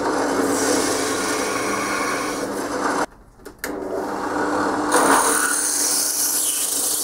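Bench drill press running with a steady motor hum while the bit cuts through a metal casting. The sound drops out briefly about three seconds in, then the press keeps running with a louder scraping clatter about five seconds in.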